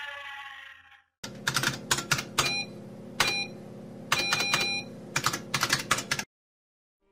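Typing sound effect: irregular runs of key clicks over a steady hum for about five seconds, cutting off abruptly. It follows a siren whose falling wail fades out within the first second.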